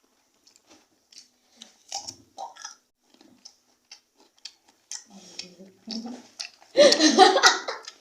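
Chewing of crisp, crunchy papaya, heard as scattered faint crunches and clicks. A loud voice cuts in about seven seconds in.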